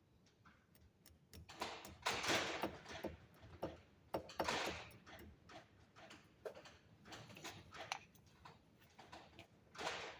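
Faint, irregular clicks and ticks with a few short scraping rustles: hand work on copper wire with small tools.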